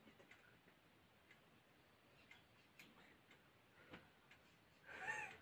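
Faint, irregular clicks of scissors snipping at hair, against near silence, with a faint voice just before the end.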